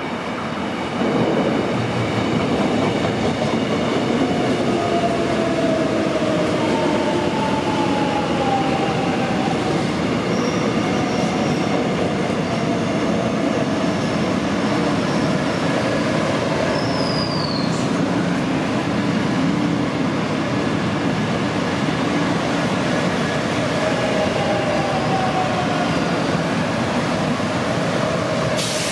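Electric commuter train rolling along the station platform, a steady loud rumble and clatter of wheels on rail that gets louder about a second in as the cars draw alongside. Thin high wheel squeals come and go several times as the cars pass.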